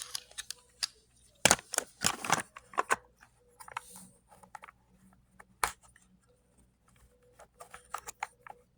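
Hard plastic clicking, knocking and scraping as the cover is fitted back onto a Bissell PowerForce Helix Turbo Pet vacuum's brush-roll housing and twisted to lock. The loudest scraping comes about one and a half to two and a half seconds in, with a sharp click a little past halfway.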